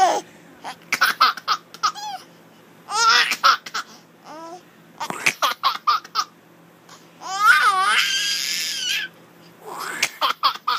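A baby giggling in short repeated bursts of laughter, with one longer high-pitched squeal about three-quarters of the way through.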